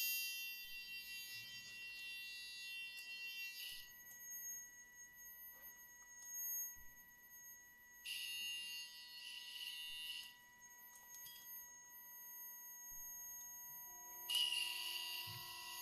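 Experimental electronic sound art: several steady high sine tones held throughout, overlaid three times by dense, shrill high-pitched buzzing that starts and stops abruptly. Faint scattered clicks run underneath, and new lower tones join near the end.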